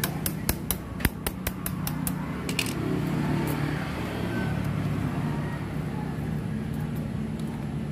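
Quick metal clicks, about ten over the first two and a half seconds, as a motorcycle drive chain is worked with pliers, over a steady low hum.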